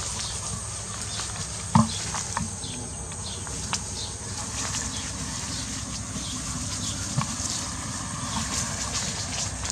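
Outdoor ambience in long grass: a steady low rumble and faint high chirping, broken by a few sharp clicks or snaps, the loudest a little under two seconds in.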